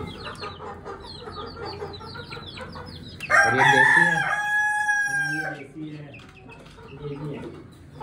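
Chickens chirping and clucking in short repeated falling calls. About three seconds in, a rooster crows once, a long call of a bit over two seconds that is the loudest sound.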